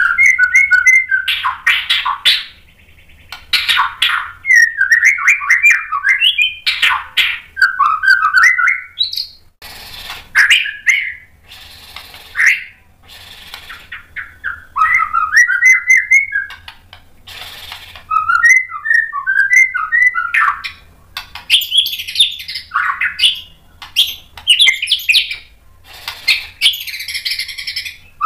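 A caged white-rumped shama sings a loud, varied song of short whistled and warbled phrases mixed with harsh, scratchy notes and brief pauses, running through its repertoire of learned phrases.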